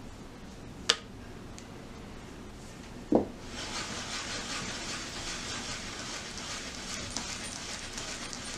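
A block of red earthenware clay set down on a wooden board with a thud about three seconds in, then pushed and rubbed against the board in a steady scraping rub. A sharp click about a second in.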